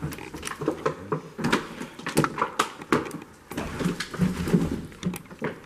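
Irregular knocks, clicks and scrapes of people moving about on a floor strewn with debris.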